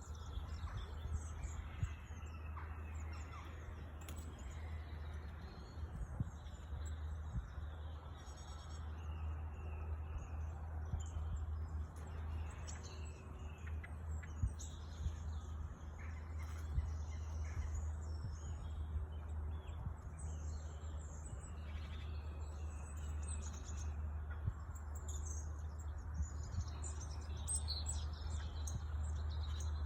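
Several songbirds singing and chirping at once, short calls and trills overlapping throughout, over a steady low hum.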